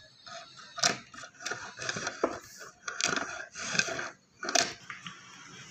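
Handling sounds inside a wooden cupboard: short scrapes and rustles, with a sharp knock about a second in and another near the end.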